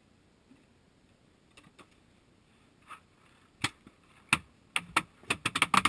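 Paintball fire: sharp cracks that begin a little over halfway through, a few single shots and then a rapid burst near the end.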